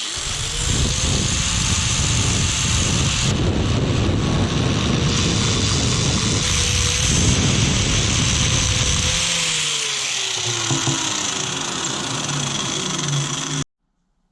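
Power tool running, its motor tone climbing as it spins up, with a harsh grinding noise while it works. Near the end the load drops away and the motor winds down, then the sound stops abruptly.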